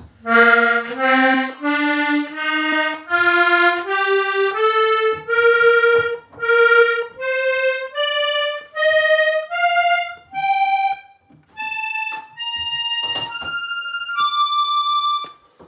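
Hohner Corona III diatonic button accordion in BbEbAb tuning playing a scale on the treble side. Single notes follow one another, climbing steadily in pitch, and the last few at the top are held longer.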